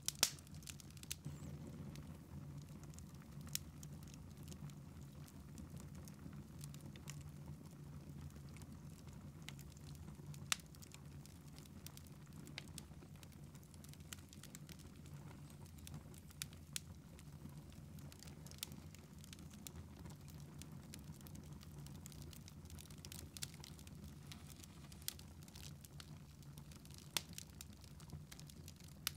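Log fire in a fireplace crackling faintly: scattered sharp pops and snaps at irregular intervals, the loudest right at the start, over a low steady hum.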